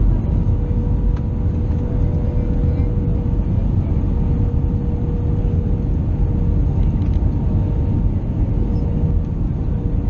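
Airbus A320 cabin noise: a steady, loud low rumble of engines and airflow with a constant hum tone running through it.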